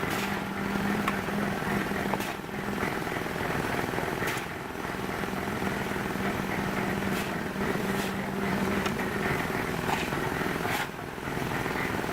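An engine running steadily with a low drone, with a few sharp knocks or clanks scattered through.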